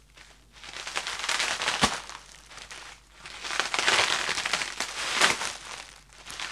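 Plastic packaging crinkling and crackling as it is cut open with a knife and pulled apart, in two bouts with a couple of sharp snaps.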